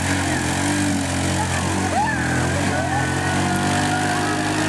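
Quad bike (ATV) engine running steadily under heavy load as it tows a caravan through deep mud.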